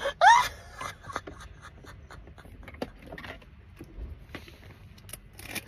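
A brief vocal sound with rising pitch at the very start, then faint scattered clicks and soft rustles against a low hum inside a car.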